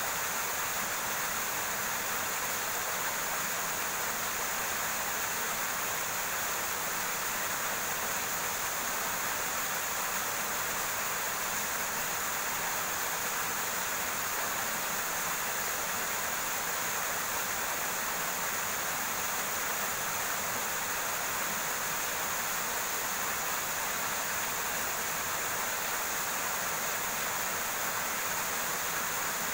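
River water running steadily over rocks, an even rushing hiss with no breaks.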